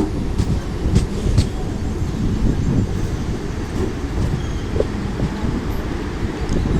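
Mumbai suburban electric local train running along the track: a steady low rumble of wheels on rails, with a few sharp clicks in the first second and a half.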